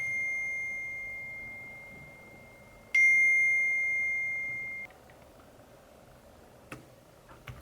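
A bell-like chime dings at a single high pitch, fading slowly. It dings again about three seconds in and is cut off abruptly nearly two seconds later, leaving faint room noise and a couple of light clicks near the end.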